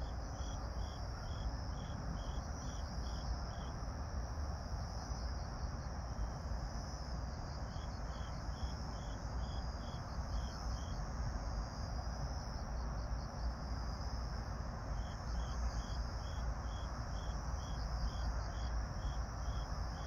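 Grass insects (crickets) chirping in an evening chorus: one insect gives evenly spaced high chirps, about two or three a second, in runs of a few seconds, over a continuous higher trill from others. A steady low rumble runs underneath.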